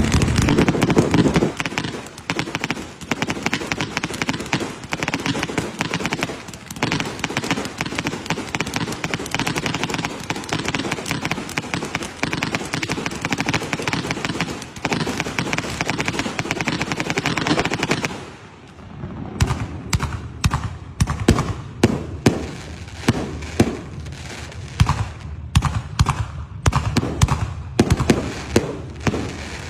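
Fireworks and firecrackers going off: a dense, continuous crackling for most of the first two-thirds, then after a brief lull a run of separate sharp bangs, several a second.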